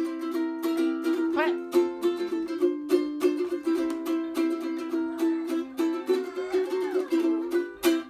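Ukulele strummed in a steady rhythm of chords, stopping abruptly near the end.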